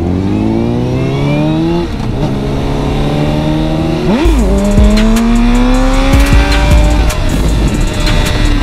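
Sport motorcycle engine accelerating hard through the gears: its pitch climbs, drops at an upshift about two seconds in and again about four seconds in, then climbs and holds steady. From the second shift on, wind buffets the microphone with a heavy low rumble.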